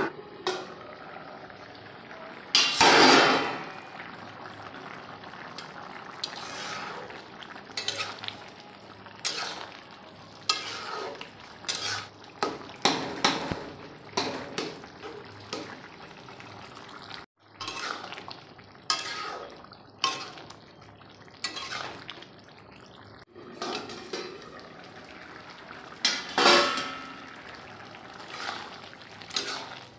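A metal ladle scrapes and clinks against a metal kadhai while stirring a thick curry, in scattered knocks and scrapes throughout. The loudest is a longer clatter about three seconds in.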